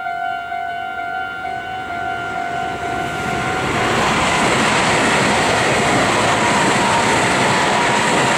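Level-crossing warning bell ringing in a steady repeating tone. About three and a half seconds in, a Meitetsu 2200 series limited-express electric train passes through the crossing without stopping, and its loud running noise drowns out the bell, with a faint whine dropping slightly in pitch near the end.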